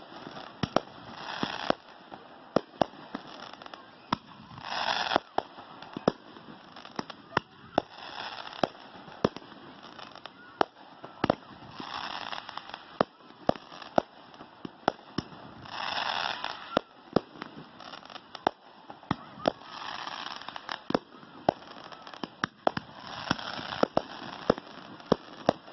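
Two consumer firework cakes, a Kona Gold and a Matrix Pyro, firing together: a steady run of sharp launch and break reports at one to three a second, irregularly spaced.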